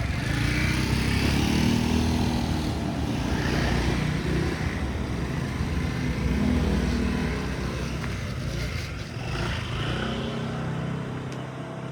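Motor vehicle engines running close by, their pitch rising and falling as vehicles pass, easing off near the end.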